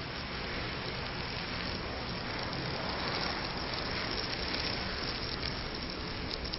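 A large heap of burning matches blazing: a steady rushing fire noise, with a few sharp crackles near the end.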